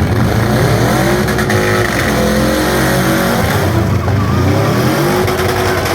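Demolition derby cars' engines running loud, several at once, revving: the pitch drops away about two seconds in, climbs again past the four-second mark and holds steady near the end.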